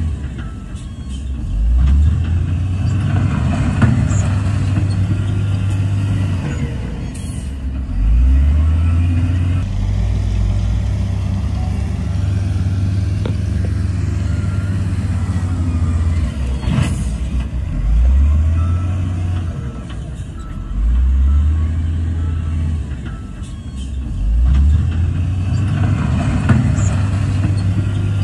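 Wheel loader's diesel engine running and revving up about five times, each rise held for a few seconds before it settles back, as it works under load pushing fill.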